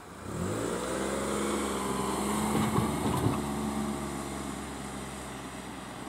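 A road vehicle's engine accelerating, rising in pitch, then running steady and fading as it drives away.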